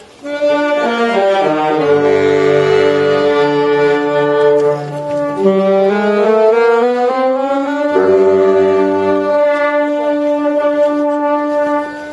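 Brass band with saxophones playing a slow melody of long held notes in chords, pausing briefly at the start and near the end.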